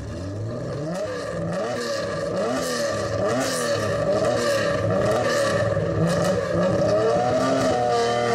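A car engine revving, its pitch rising and falling over and over.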